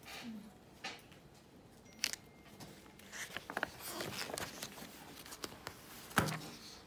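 Paper rustling and crinkling as sketchbook pages and a fold-out strip of printed photos are handled and turned, with a louder thump about six seconds in.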